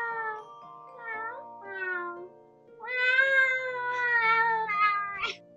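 Women imitating a cat's meow by voice: two short meows, then a long drawn-out meow about three seconds in, followed by a couple of quick ones. Steady background music plays underneath.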